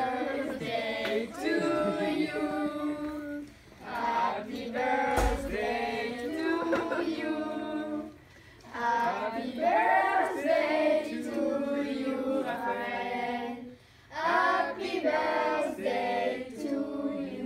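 A group of children singing a birthday song together in four long phrases with short pauses between them. A brief low thump about five seconds in.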